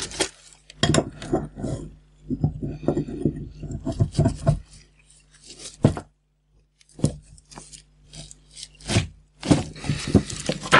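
Hand tools, a wrench and pliers, knocking and scraping against a small Renault 4L brake pressure regulator while its large, very tight plug is worked loose. Irregular clinks and scrapes, with a short pause around the middle.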